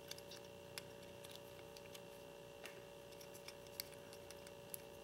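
Faint, scattered small clicks and taps of a BlackBerry Pearl's plastic back housing being handled and fitted during reassembly, over a steady faint hum.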